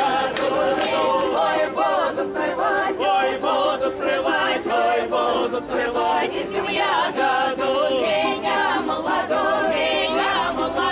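Several voices singing together a cappella, a folk song in chorus, with crowd noise and a few sharp clicks underneath.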